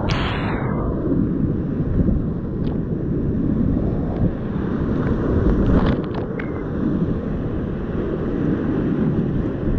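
Whitewater rapids of the Ötztaler Ache rushing loudly around a kayak, with a splash of water over the camera at the start and a few small splashes of paddle strokes and waves on the boat later. A dull, low-heavy rushing with rumble on the microphone.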